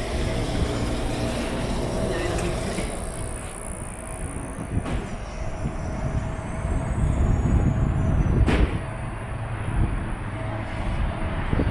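City street traffic: a steady low rumble of passing vehicles with a constant hum through it, and one sharp click about eight and a half seconds in.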